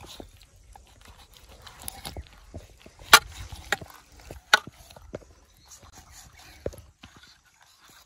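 Large kitchen knife scoring a raw whole chicken on a plastic plate: soft slicing with scattered clicks and taps as the blade meets the plate, the sharpest about three seconds in and again about a second and a half later.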